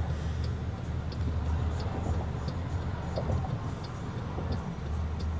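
Car cabin hum from the engine and road, with a turn-signal indicator ticking evenly, about three ticks every two seconds.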